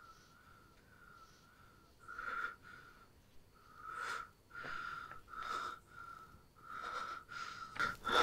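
A man breathing heavily in uneven, shaky gasps, coming more often and louder toward the end, over a high tone that pulses on and off over and over.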